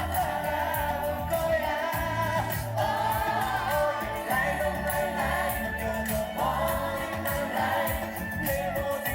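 Live pop music played loud over a sound system, with singing over a steady drum beat.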